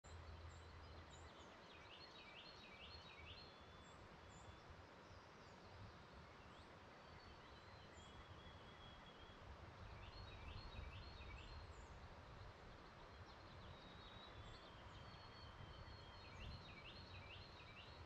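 Faint wild songbirds: one bird repeats a short song of a few quick, evenly spaced notes about every seven seconds, with thin high calls in between, over a low rumble.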